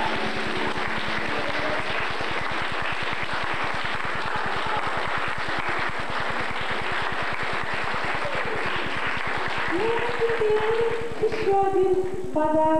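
Audience applauding. About ten seconds in, a singer starts a song with held notes over accompaniment.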